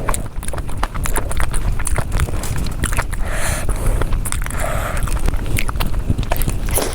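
Close-miked eating: chewing with many quick, irregular mouth smacks and crunching clicks over a steady low rumble.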